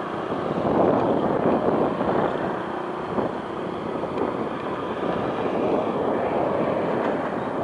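Steady drone of fishing boat engines under way, mixed with a rushing noise of wind and sea.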